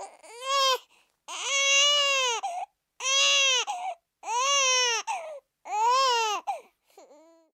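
Newborn baby crying: five loud wails, each about a second long and rising then falling in pitch, followed by a short fainter cry near the end.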